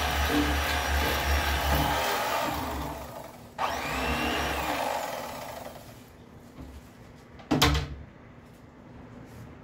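Electric fillet knife running as it fillets crappie, a steady motor buzz that cuts off sharply about three and a half seconds in, starts again and dies away. About seven and a half seconds in comes one sharp knock, the loudest sound.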